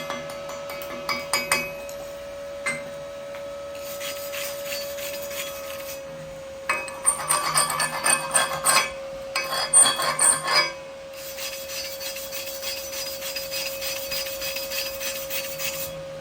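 Steel weld beads being cleaned: sharp metallic taps and clinks, then several spells of rapid scraping and rubbing, as from a chipping hammer and wire brush on slag. A steady hum runs underneath.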